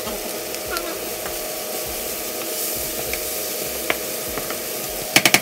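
Diced onion, bell pepper and tomato sizzling in a nonstick frying pan as a wooden spoon stirs them, with a few light clicks from the spoon. Near the end there is a quick run of loud sharp clicks.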